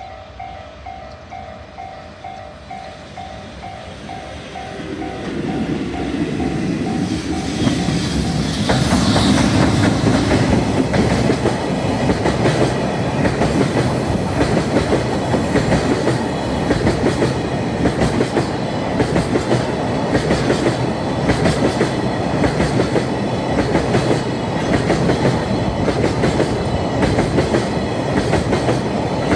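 Level crossing warning bell ringing in a steady pulse as an EF210 electric locomotive approaches and rushes past about nine seconds in. A long freight train of wagons then rolls by, its wheels clicking steadily over the rail joints.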